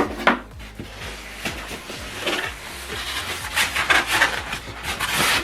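Cardboard box and packaging being handled and opened, with irregular rustling and scraping and a sharp knock at the start.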